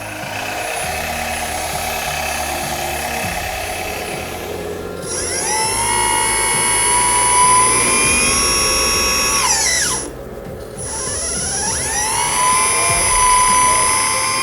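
The electric hydraulic pump of a 1/14 metal RC hydraulic bulldozer whining as the blade hydraulics are worked. It spins up about a third of the way in, runs steadily, winds down, then spins up and runs again after a brief pause. Before that there is a steady mechanical hum.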